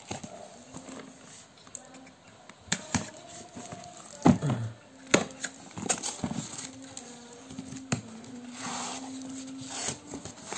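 Cardboard shipping box and packing tape being handled and pulled open: rustling, scraping and scattered knocks of cardboard, the loudest knock about four seconds in.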